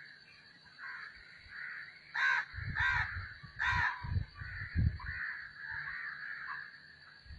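A bird calling: three loud, harsh calls about two-thirds of a second apart, a couple of seconds in. Softer continuous chirping runs beneath them, with some low rumble under the loud calls.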